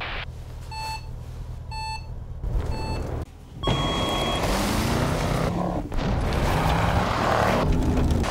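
Start-timer countdown beeps, three short ones about a second apart over an idling Range Rover Sport engine, then a longer final beep as the SUV launches. The engine revs hard, its pitch rising and dropping through gear changes, over a loud rush of tyres on loose rock.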